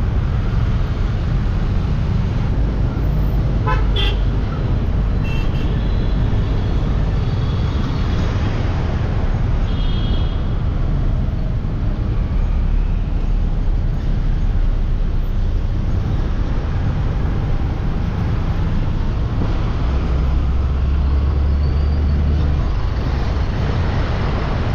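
Steady low rumble of road traffic or a moving vehicle, with a few short vehicle-horn toots about four, five and ten seconds in.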